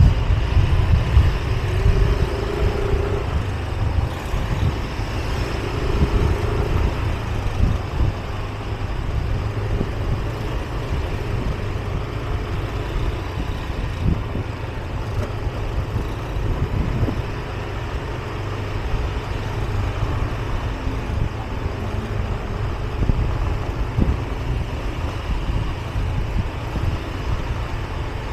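A Yamaha scooter being ridden slowly over brick paving: a steady low rumble of its engine and wind on the microphone, with a few faint knocks.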